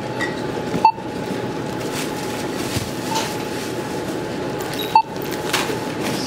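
Background noise at a busy store checkout: a steady hum with a faint steady tone running through it, broken twice by short clicks.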